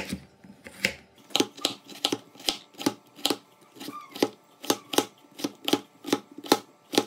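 Repeated sharp knocks on a hard surface, about two or three a second, irregularly spaced.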